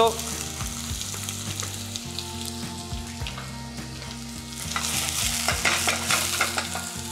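Chopped onion and red and green peppers tipped into hot oil in a stainless steel saucepan, frying and sizzling as the base of a pisto. From about five seconds in a spoon stirs them, scraping against the pan.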